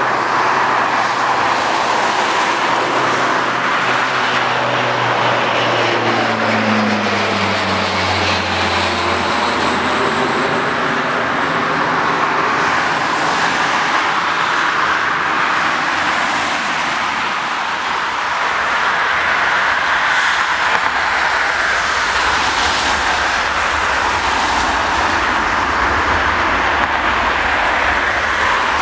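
Airbus A320 jet engines whining as the airliner rolls past, the tone dropping in pitch as it goes by. About two-thirds of the way through, a deeper rumble builds as the engines spool up on the wet runway, the start of the takeoff run.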